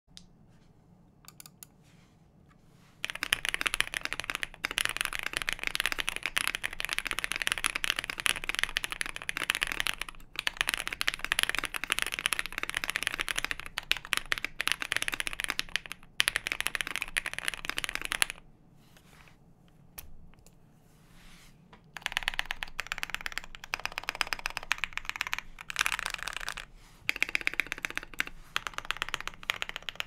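Fast typing on a Zoom65 mechanical keyboard with factory-lubed JWK linear switches, a PC plate, doubleshot PBT keycaps and full case foam, in its stock build: rapid, dense key clicks. The typing starts about three seconds in, pauses for a few seconds past the middle, then resumes.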